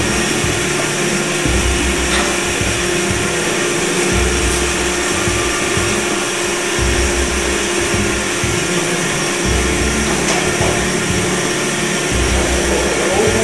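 Industrial band saw machine running: a steady mechanical whir with a constant low tone. A deeper throb swells in about every two and a half to three seconds.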